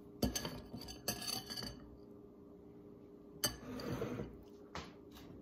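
Metal spatula scraping and clinking against a glass mixing bowl while stirring thick banana-bread batter. It comes in two spells, the first starting about a quarter of a second in and the second about three and a half seconds in, with a light knock near the end.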